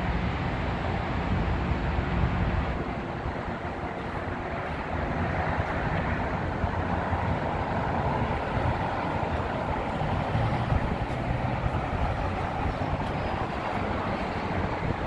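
Steady rush of distant road traffic heard from high above a city freeway, an even noise with a low rumble underneath.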